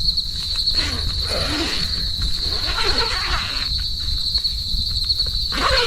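Steady high-pitched insect chorus buzzing, over a low rumble of wind on the microphone, with a few short, low sliding calls.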